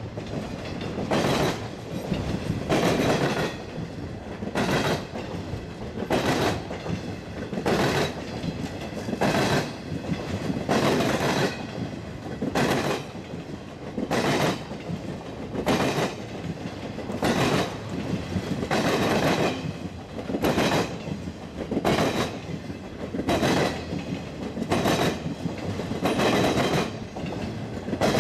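Freight car wheels of a passing intermodal piggyback train clattering over the rail joints, a steady clickety-clack that repeats about every second and a half, over a constant rolling rumble.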